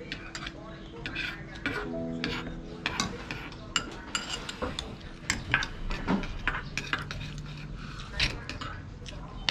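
Metal spoons clinking and scraping against ceramic and metal bowls while eating noodles, in many short irregular clinks.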